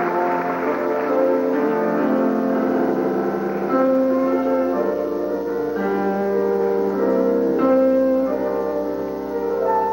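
Piano playing the slow instrumental introduction to a soprano romanza, sustained notes and chords changing every second or so, before the voice enters.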